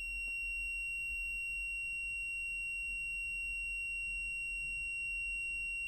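BSIDE X1 multimeter's built-in buzzer sounding one steady, unbroken high-pitched beep, starting sharply. This is the meter's continuity beep, which sounds when the probes see less than about 30 ohms.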